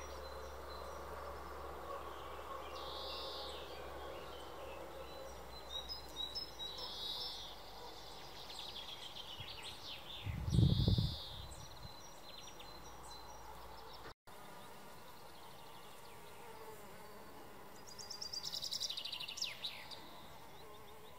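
Honeybees buzzing as a faint, steady hum, with short high chirps now and then and a brief low thump about ten seconds in.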